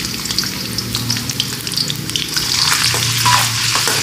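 Julienned ginger sizzling and crackling in hot ghee in a steel karahi, stirred with a metal spoon.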